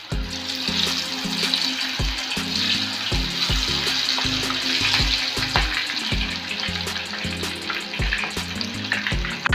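Batter-coated mushroom pieces deep-frying in hot oil, a continuous sizzle, with background music underneath.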